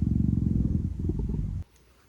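Big domestic cat purring close to the microphone: a low, rapidly pulsing rumble that cuts off suddenly about one and a half seconds in.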